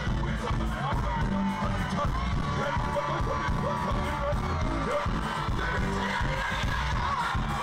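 Live band music with a heavy bass beat, with crowd voices over it.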